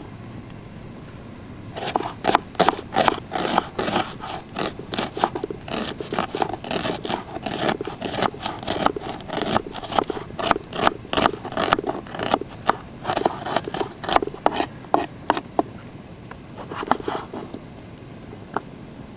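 Kitchen knife chopping an onion on a wooden cutting board: a quick, even run of knife strikes against the board, about three a second, starting about two seconds in and stopping around fifteen seconds, then a few more cuts near the end.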